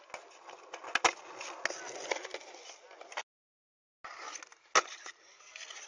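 Skateboard wheels rolling on concrete and the board sliding along a concrete ledge, with sharp clacks of the board hitting; the loudest clack comes about a second in. The sound cuts to silence for most of a second, then the rolling resumes with another sharp clack near the end.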